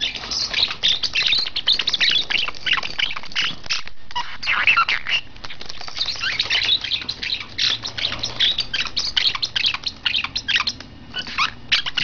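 Small green pet parrot chattering in a near-unbroken stream of rapid, high-pitched chirps and squawks, with brief lulls about four seconds in and near the end.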